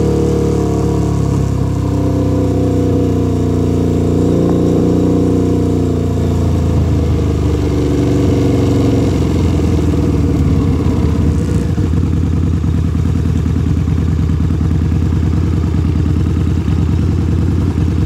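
Harley-Davidson V-Rod's liquid-cooled V-twin running loud through baffle-less TAB slash-cut mufflers. The revs fall slowly over the first ten seconds, then settle into a steady low rumble with distinct, evenly spaced exhaust pulses.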